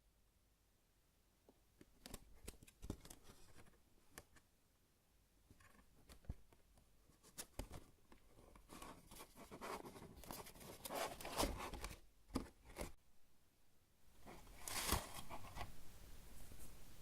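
Hands handling a soft foam cheesecake squishy toy: scattered light clicks and taps, with longer stretches of rustling around the middle and a short louder burst near the end.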